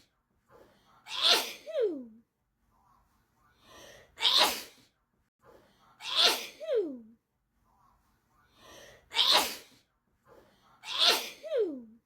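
A person's sneezing fit: five sharp sneezes two to three seconds apart, each after a short breath in. Three of them trail off in a falling vocal sound.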